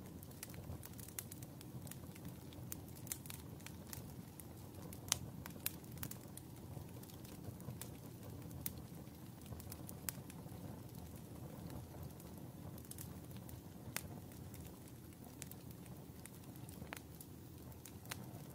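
Glowing wood embers crackling: scattered sharp pops and ticks over a low, steady rumble, with the loudest pop about five seconds in.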